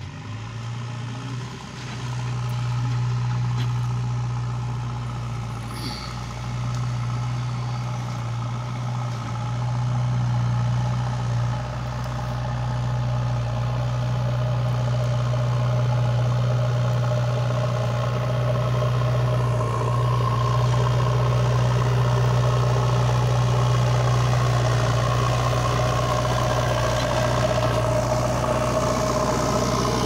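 JCB 3DX Eco backhoe loader's four-cylinder diesel engine running under load as the machine pushes brush with its front bucket, a steady low drone. It swells over the first couple of seconds and keeps getting slowly louder as the machine comes closer.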